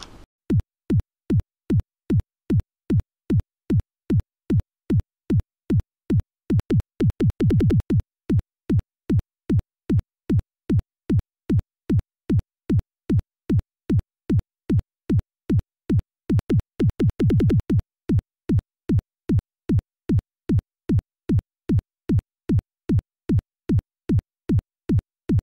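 Electronic music: a drum-machine kick beat, about two hits a second, each hit dropping in pitch, with quick rolls of faster hits about seven and seventeen seconds in.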